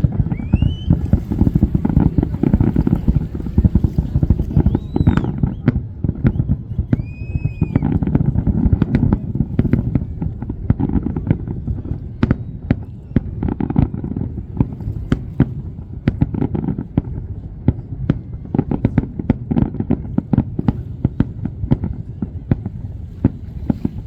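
Fireworks display: a dense, continuous barrage of crackling and bangs over a heavy low rumble, with a few short whistles in the first several seconds.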